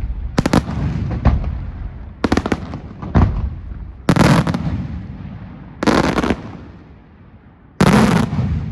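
Aerial fireworks shells bursting in a series of loud bangs, about seven groups, some as quick rapid-fire clusters. Each burst is followed by a rolling echo that dies away, and a big burst comes near the end.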